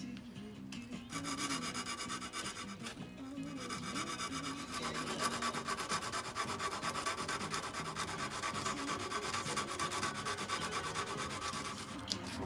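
Hand-sanding with 120-grit sandpaper: quick back-and-forth rubbing strokes on a folding knife's part. The strokes begin about a second in, pause briefly, then carry on steadily. Background music plays underneath.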